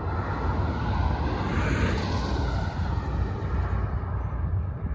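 Steady low rumble of a distant diesel freight train approaching. A swell of rushing noise rises and fades, peaking about two seconds in.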